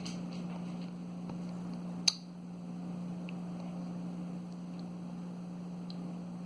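A steady low hum with a single sharp click about two seconds in and a few faint ticks.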